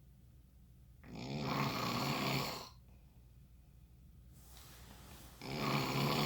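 A person snoring in sleep: two loud snores, one about a second in and one near the end, with quieter breathing swelling up just before the second.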